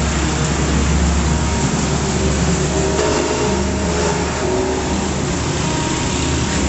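Street traffic: a steady, heavy engine rumble from passing trucks and motorbikes.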